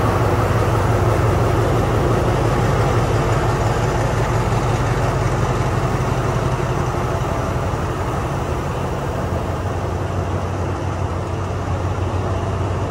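Diesel locomotive engine idling with a steady low hum, growing a little fainter in the second half.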